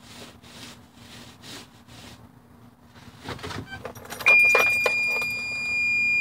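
Keys rattling and clicking in the ignition of a Mitsubishi box truck, then the dashboard warning buzzer comes on as the key is turned to on, about four seconds in, with a loud, steady, high-pitched tone.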